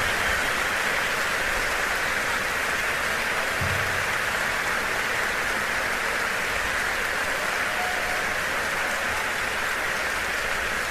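A steady, even hiss of noise, easing off slightly toward the end.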